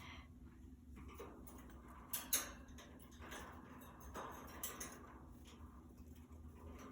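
Scattered light clicks and taps around a budgie cage, the loudest a quick pair about two seconds in.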